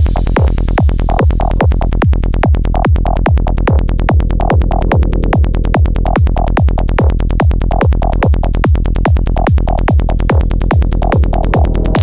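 Full-on psytrance at 145 BPM: a steady four-on-the-floor kick drum, each kick falling in pitch, with a rolling bassline filling the gaps between kicks and short recurring synth stabs above.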